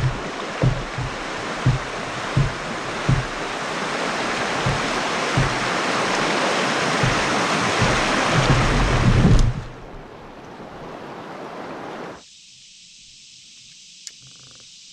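Rushing whitewater of a shallow river rapid close around a kayak, building steadily, with a series of low thumps in the first few seconds, about one every half to three-quarters of a second. The rush drops away suddenly about nine and a half seconds in, leaving only a faint steady hiss of calm water.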